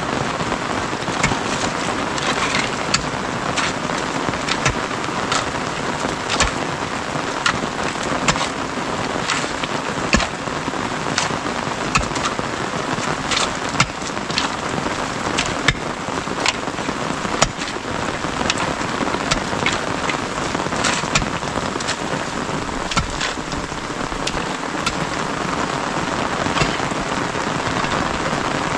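Steady rain, with frequent sharp ticks scattered irregularly through it.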